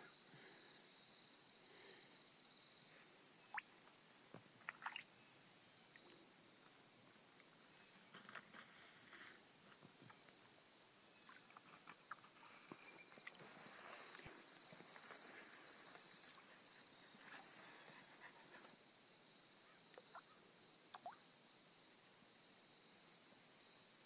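Late-summer insect chorus of crickets, a steady high-pitched trilling, with a louder, higher hiss for about six seconds in the middle and a few faint ticks.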